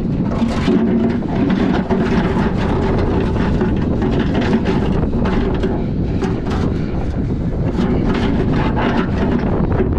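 An engine running steadily, with wind buffeting the microphone.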